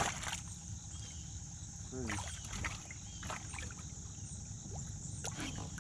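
Water splashing as a small hooked crappie is played at the surface beside the boat, with a brief sharp splash right at the start. A steady high-pitched insect drone runs underneath.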